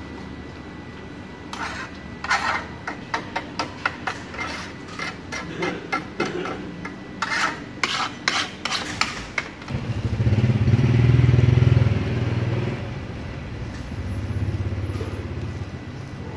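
A run of sharp, irregular clacks and taps lasting several seconds. Then a motorbike engine passes close by, swelling loudest just after the middle and fading, with a second, fainter pass near the end.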